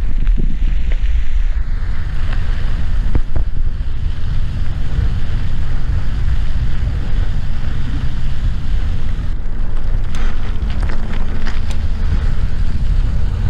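Wind buffeting a bike-mounted action camera's microphone during a mountain bike ride, a steady low rumble with the tyres rolling over dirt and gravel underneath. About ten seconds in, a run of sharp clicks and rattles comes from the bike over rough ground.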